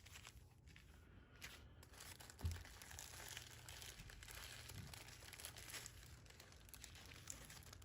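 Faint crinkling of small plastic bags of diamond-painting drills being handled, with one soft bump about two and a half seconds in.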